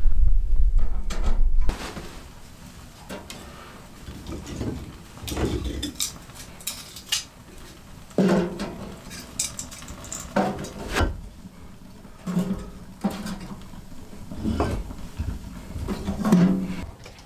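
Split wooden kindling sticks being handled and laid into a small steel wood stove's firebox: a dozen or so sharp wooden clacks and clatters against the metal at irregular intervals. A loud low rumble fills the first couple of seconds.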